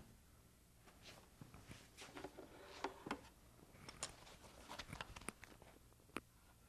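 Faint handling noise over quiet room tone: scattered light clicks and brief rustles as a heavy cable is lifted and held overhead, with one sharper tick near the end.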